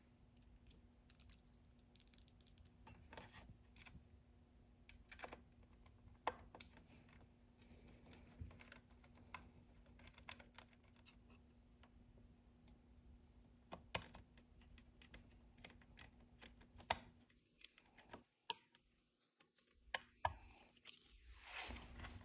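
Faint, scattered clicks and light scrapes of small metal parts and a screwdriver being handled while small plates are screwed onto a toy train accessory's base, over a low steady hum.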